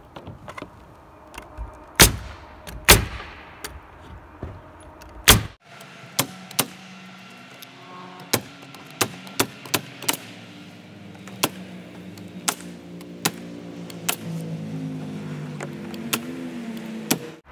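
Pneumatic nail gun firing nails into OSB roof sheathing: three loud shots in the first few seconds, then a series of lighter shots at roughly one every half second to a second. A low droning hum whose pitch drifts runs underneath in the later part.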